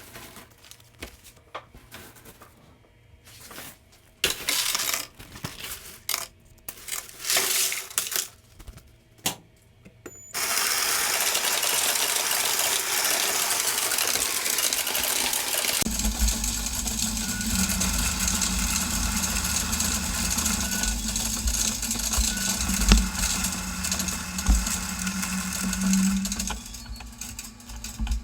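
Cash being handled with scattered clicks and rustles, then money-counting machines running: a steady whir starts about ten seconds in, and about halfway through a motor hum and a rattle of coins join it as the coins go through a coin counter.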